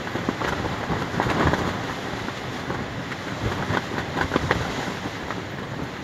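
Strong wind buffeting the microphone, with a large piece of fabric flapping and snapping in the gusts. The gusts are loudest about a second in.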